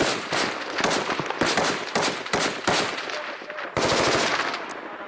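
Machine-gun fire in rapid bursts, shots cracking close together in quick irregular groups, with a denser unbroken burst near the end.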